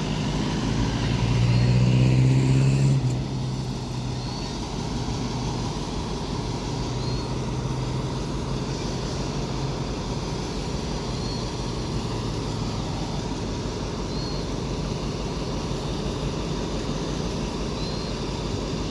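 Diesel train passing: the locomotive's engine drone is loudest about two seconds in and fades by three seconds, leaving a steady rumble of the carriages rolling by.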